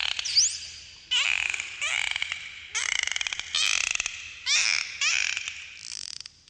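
Dolphins underwater: a run of about seven bursts of rapid clicking, each with squeaky whistle tones bending up and down, and a short rising whistle in the first half second.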